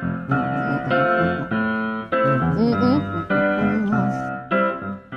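Background music: a run of sustained chords, changing about twice a second.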